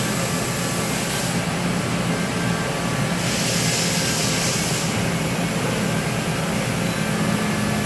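CNC lathe running with its live milling tool spindle turning, a steady machine hum under a hiss. The hiss brightens for a couple of seconds around the middle.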